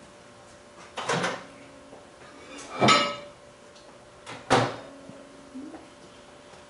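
Three kitchen knocks and clatters about a second and a half apart as things are handled and set down at the counter, the loudest in the middle with a short ringing clink.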